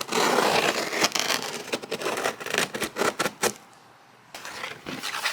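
Cardboard box being opened: a rip of noise in the first second, then a run of rustles, scrapes and clicks from the packaging, a short pause, and more handling near the end.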